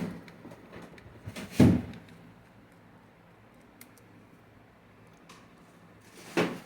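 Handling noise from dismantling a truck gear selector lever module: a single knock about a second and a half in, then a few faint clicks from the tool and plastic housing, over a low steady hum.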